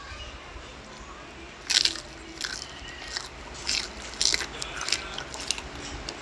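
Close-up mouth sounds of a person biting into and chewing a crisp lettuce wrap: a string of sharp, crisp crunches about every half second, beginning a little under two seconds in.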